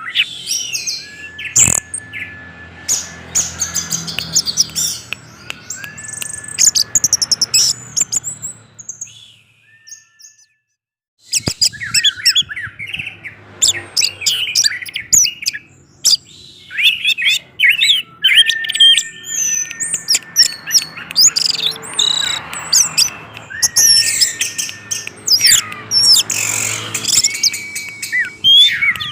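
Orange-headed thrush singing a fast, varied, continuous song of chirps, trills and whistled notes, breaking off for about two seconds near the middle.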